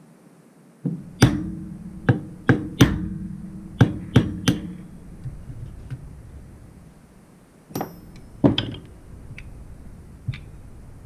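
Small ball-peen hammer tapping a 1/16-inch pin punch to drive out the float bowl pin of a Harley-Davidson Sportster CV carburetor: seven sharp metallic taps in quick succession, then two more knocks near the end.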